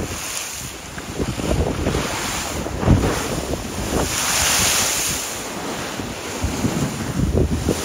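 Wind buffeting the microphone over the wash of waves on choppy water, with a hard gust about three seconds in and a swell of surf hiss around four to five seconds in.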